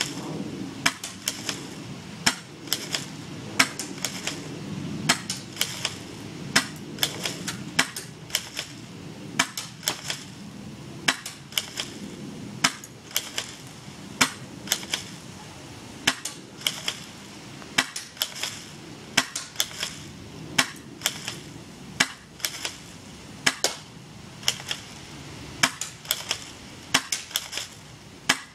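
Airsoft shotgun being fired over and over: sharp snapping clicks of shots and cocking, coming in quick clusters of two or three about every second.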